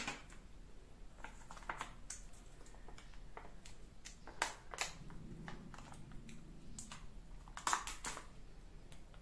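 A small foil-lined plastic sachet of chili paste being handled and torn open, first with the fingers and then with the teeth: scattered crinkling clicks and snaps, the sharpest about four and a half seconds in and again near the end.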